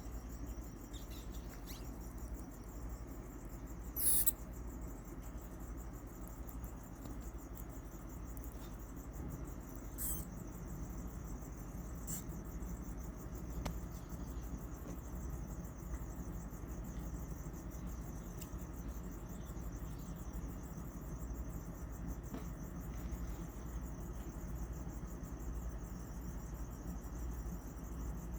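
Crickets chirping steadily in a fast trill over a low steady hum, broken by a few brief high-pitched squeaks from a newborn pink rat being taken by a pacman frog, the loudest about four seconds in and two more near ten and twelve seconds.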